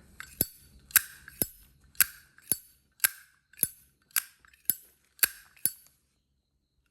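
Zippo lighter lid being flicked open and snapped shut over and over: about eleven sharp metallic clicks, roughly two a second, stopping a little over a second before the end.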